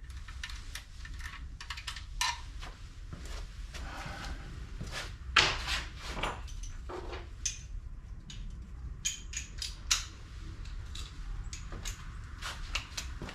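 Scattered metallic clicks, clinks and knocks of bolts and tools being handled while head bolts are started by hand into the engine, over a low steady hum.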